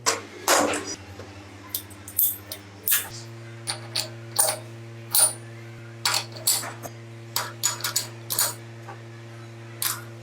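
Small metal parts and tools clinking and tapping in an irregular series of sharp clicks, over a steady low hum that gets a little louder about three seconds in.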